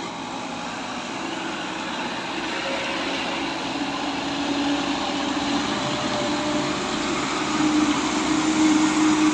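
Diesel truck engine running under load, growing steadily louder as it draws nearer, its low drone rising slightly in pitch near the end.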